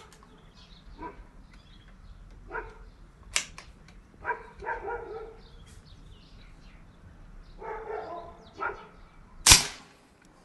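A P10 PCP air rifle fires one sharp shot about nine and a half seconds in, the loudest sound here, with a smaller sharp click about three seconds in. A dog barks several short times in between.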